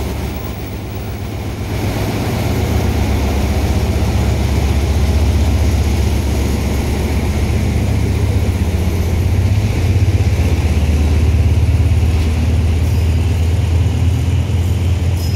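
An SRT Hitachi-class (HID) diesel-electric locomotive, No. 4507, running slowly past with a steady, loud, deep engine drone. Its passenger coaches then roll by on the rails behind it.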